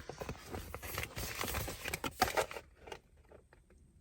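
Packaging and small parts being handled: irregular rustling and light clicks that die down about two and a half seconds in.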